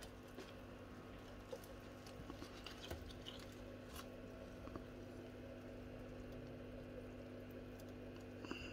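Faint steady electrical hum with a few light clicks and knocks of something being handled.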